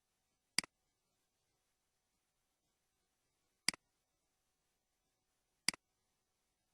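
Three sharp clicks, each a double click with a weaker second click right after the first, spaced unevenly about three seconds and then two seconds apart.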